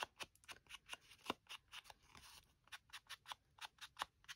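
Small ink pad dabbed and rubbed along the edges of cardstock squares, making quick, faint scuffs about four or five a second, with a short smoother rub about halfway through.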